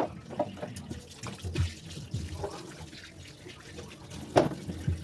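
Kitchen tap running and splashing as tomatoes are washed under it in the sink. Irregular knocks and clatter come from things handled at the sink, the loudest a little past four seconds in.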